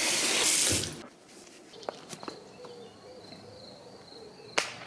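Tap water running in a loud steady hiss over a rugged phone held under a bathroom faucet, cutting off about a second in. Then a quiet outdoor stretch with a faint steady high tone, a few light ticks, and one sharp knock near the end.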